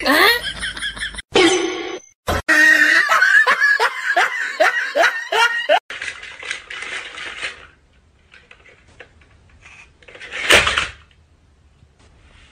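A person laughing hard in a quick string of rising 'ha' sounds for about the first six seconds, then it goes much quieter, with one short noisy burst about ten seconds in.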